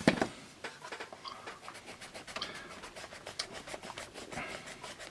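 Vintage Scripto 77 mechanical pencil writing on paper: the graphite lead scratches across the page in many quick, light strokes.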